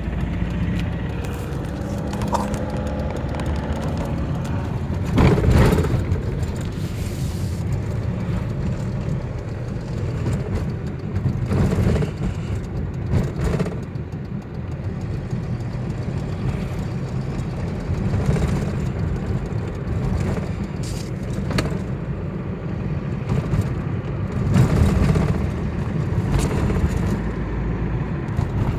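Car driving with a steady low engine and road rumble, broken by a sharp knock every few seconds at irregular intervals. This is the knock that shows up while driving.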